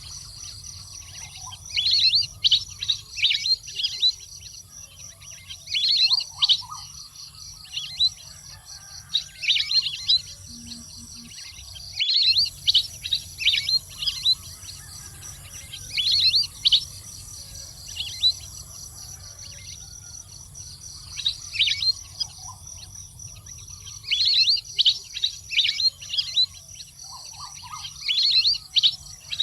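Wild duck calls: repeated clusters of high, downward-sliding whistled chirps, one cluster every few seconds, over a steady low hum.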